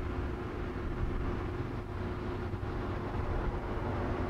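Steady low background hum with a faint steady tone, without distinct knocks or clicks.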